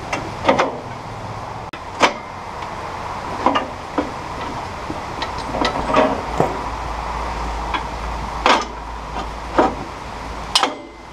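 Irregular metal clinks and knocks as steel sawmill frame parts and bolts are handled and fitted together, about ten sharp strikes over a steady background hum.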